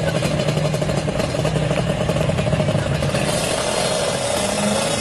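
Two-stroke single-cylinder engine of a tuned Kawasaki Ninja R drag motorcycle running steadily; about three seconds in its tone brightens with more hiss.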